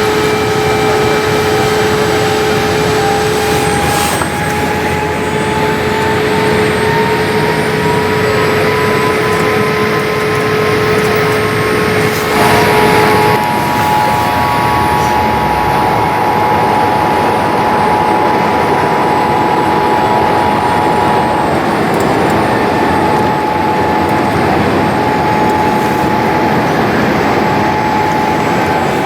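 Cabin noise of a Boeing 787-8 airliner: a steady rush of air and engine noise with the Rolls-Royce Trent 1000 engines' tones running underneath. One engine tone rises slowly over the first dozen seconds, and the tones shift to a new pitch about 12 seconds in, a sign of a thrust change.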